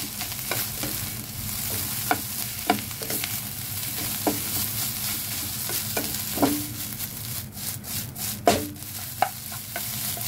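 Fried rice sizzling in a hot nonstick wok as a plastic slotted spatula stirs and scrapes it, with irregular knocks of the spatula against the pan. The sizzle briefly drops out a few times about three-quarters of the way through.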